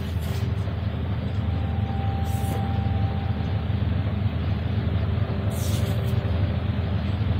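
Steady rush of wind and water on a sailboat underway, with a strong deep rumble. A few brief hissy splashes come near the start, about two and a half seconds in and about six seconds in.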